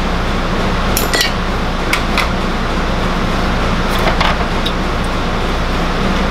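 Steady low machine hum from equipment running in the workshop, with a few light clicks of plastic air box parts being handled on a small engine.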